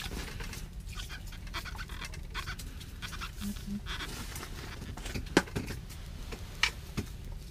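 Freshly landed yellow perch flopping on the ice, a run of irregular wet slaps and taps, the two sharpest about five and a half and six and a half seconds in.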